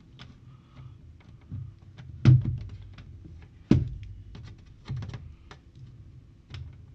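Sharp clicks and knocks as a 12 V 9 Ah sealed lead-acid battery is handled and the UPS's push-on leads are plugged onto its terminals: several separate knocks about a second apart, the loudest about two seconds in and again near four seconds.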